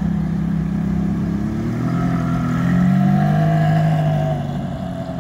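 Ferrari F430 Spider's V8 engine accelerating away. The engine note rises and is loudest about three seconds in, then fades as the car drives off.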